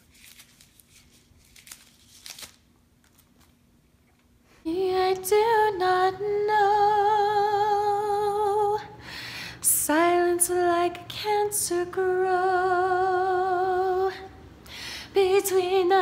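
A woman singing long held notes with vibrato in several phrases, starting about four and a half seconds in after near silence; by her own words her voice is not warmed up.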